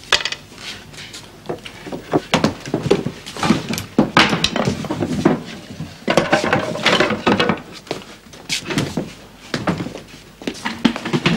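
A hurried, irregular run of wooden knocks, thuds and scrapes as loose floorboards are handled and set back into a plank floor.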